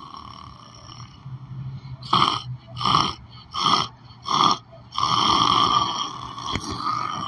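A sleeping person snoring: a run of four short, loud snores less than a second apart, then one long, steady snore.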